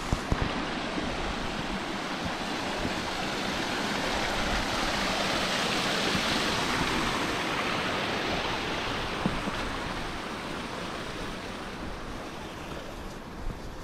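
Rushing water of a mountain stream, a steady hiss that swells to its loudest about halfway through and then fades away.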